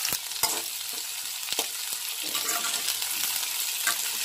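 Chopped onions sizzling as they fry in hot oil in a kadai, freshly added on top of dried red chillies, garlic and ginger. A spatula scrapes and knocks against the pan a few times as they are stirred.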